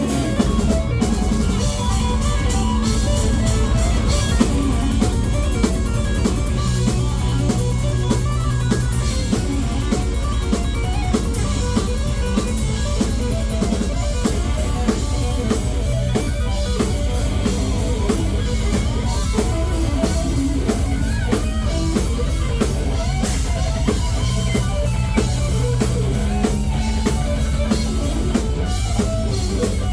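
Live metal band playing an instrumental passage: electric guitars over a dense, driving drum-kit beat.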